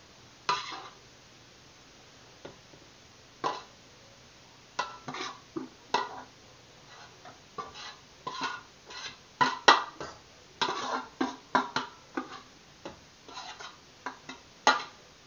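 A kitchen utensil scraping and knocking against an aluminum pot as cooked onions are scraped out into a paper-towel-lined pot to drain their fat: irregular clinks and scrapes, a few at first, then coming quickly from about five seconds in.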